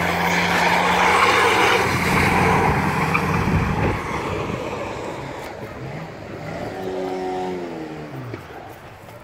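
Banger racing cars' engines running hard on the track, a steady loud drone that fades about four seconds in. Later one car's engine note drops in pitch as it passes or slows.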